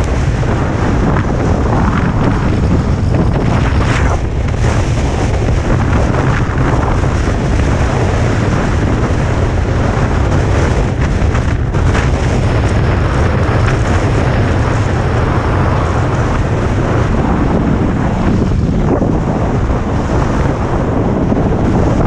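Strong wind buffeting an action camera's microphone on a ski run: a loud, constant rush with a heavy low rumble.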